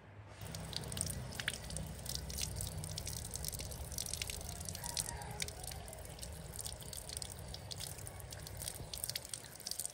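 Water running from an outdoor tap and splashing over hands rinsed under the stream, with many small drips and splashes. It starts a moment in.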